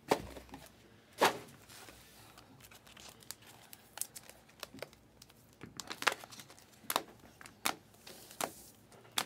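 Trading cards and clear plastic card holders being handled: two sharp knocks in the first second and a half, then light clicks and short rustles as cards are thumbed through and holders tap together.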